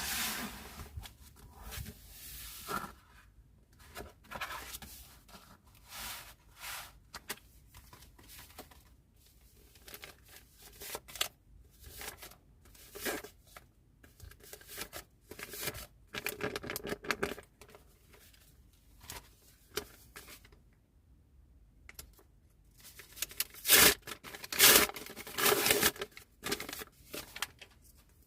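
Paper and sticker sheets being handled: irregular rustling and tearing sounds, with the loudest crinkling bursts near the end.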